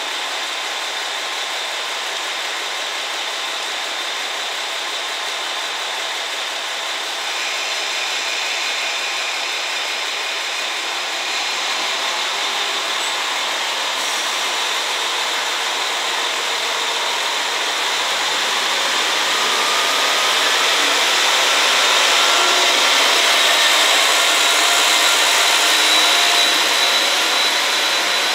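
Diesel engines of a KiHa 40-series railcar set running at the platform, then growing steadily louder as the train moves off and its cars pass.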